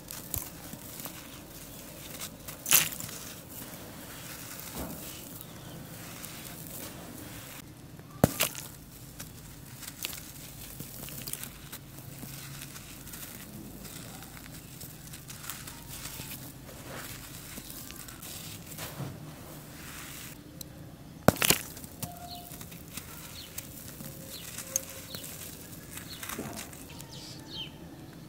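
Hands crumbling balls of compressed charcoal dust and letting the powder trickle through the fingers: a steady dry rustling, broken by a few sharp cracks as lumps snap apart.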